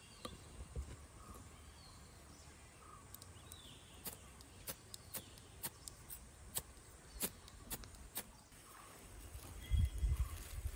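A hand-held fire starter struck over a small pile of dry twigs and leaves: about a dozen sharp clicks in an uneven rhythm over some four seconds, in an attempt to catch a flame. Small birds chirp now and then, and a few heavier low thumps come near the end.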